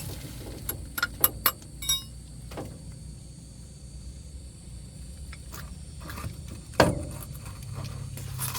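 Metal clinks and knocks: a few sharp clicks in the first two seconds, one leaving a brief metallic ring, then a louder single knock near the end, over a low steady hum.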